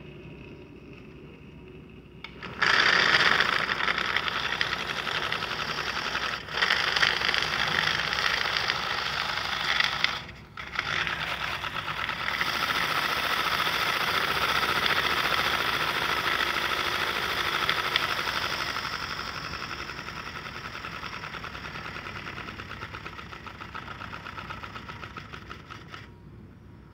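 Mamod SL1 16mm-scale live-steam locomotive running free on blocks: a rapid, hissing chuff of steam exhaust from its oscillating cylinders. It starts a couple of seconds in as the regulator is opened, stops for a moment about ten seconds in, then runs on, growing quieter in the later part and stopping near the end.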